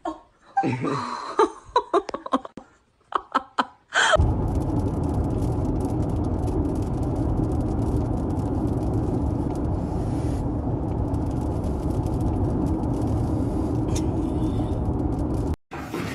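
Steady road and engine noise heard inside a moving car's cabin, starting about four seconds in and cutting off abruptly near the end. Before it, a few short, separate bursts of sound.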